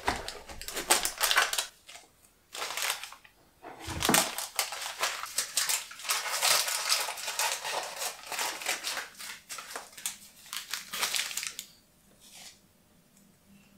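Baking paper crinkling and rustling as it is handled and pulled out of a glass baking dish, in a run of crackly bursts that stop about two seconds before the end.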